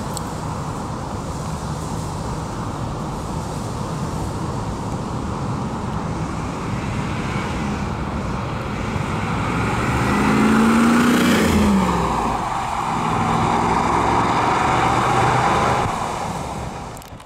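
1997 Pontiac Firebird Formula convertible's 5.7-litre LT1 V8 running as the car is driven at low speed. It gets loudest about ten to twelve seconds in as it passes close by, its note dropping in pitch, and it stays loud for a few seconds after as it pulls away.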